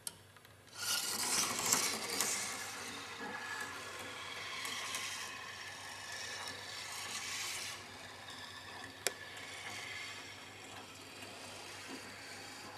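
A steel marble rolling along the plastic rails of a Quercetti Skyrail marble run, a continuous rattling rumble that starts about a second in, loudest at first and then steadier. There is a sharp click at the start and another about nine seconds in.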